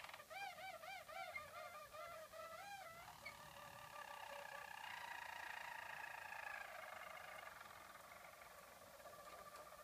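Harzer roller canaries singing their soft, low roller song. It opens with a run of arched notes, each rising and falling in pitch, about three a second. About three seconds in it turns to long, level rolling tones that grow fainter near the end.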